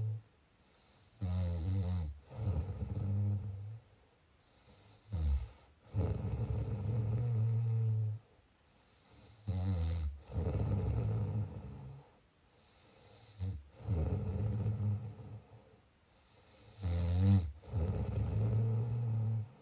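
A person snoring in a steady rhythm, about one breath every four seconds. Each is a short, hissy breath followed by a longer low, buzzing snore, with quiet pauses between.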